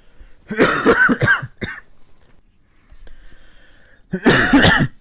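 A person coughing: a quick run of about three coughs starting about half a second in, then another loud coughing burst about four seconds in.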